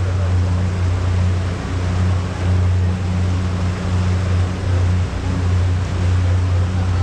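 Small passenger ferry's engine running at a steady, even drone, with a hiss of water and wind under it.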